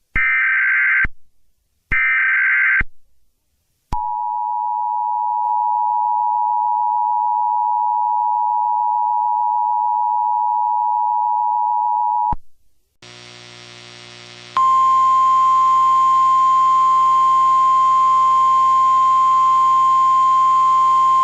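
Emergency Alert System tones: the last two bursts of the warbling digital SAME header, then the two-tone EAS attention signal held steady for about eight seconds before it cuts off. Half a second later a harsh buzz of many tones starts, and about a second and a half after that a steady high tone joins it and holds to the end.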